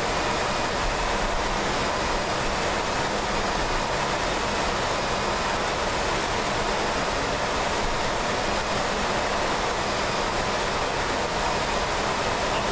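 Steady, even rushing noise, like air flow, with a faint steady hum underneath; it holds constant without change.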